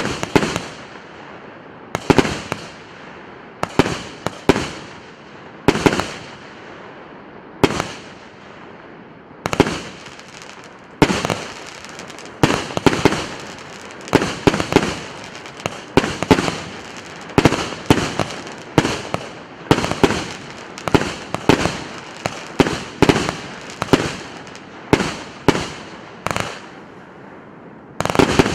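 An 88-shot, 1.2-inch multi-shot fireworks cake firing: a long series of sharp booms from shells bursting in the air, each with a fading echo. The booms come about once a second at first, then faster, and near the end a dense crackling starts.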